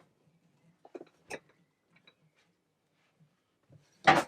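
A few faint clicks, then a sharp knock about four seconds in and a smaller one just after, as the bottom engine mount bolt is worked into place through the frame and engine mount.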